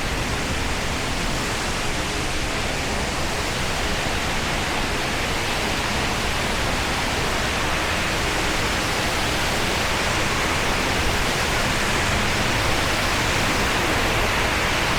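Waterfall pouring into a pool: a steady, loud rush of falling water, growing a little louder near the end.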